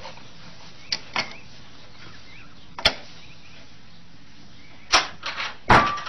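Scattered wooden knocks and latch clicks from a wooden puzzle box as a cat works its latch from inside, two about a second in and one near the middle, then a louder clatter in the last second as the door comes open.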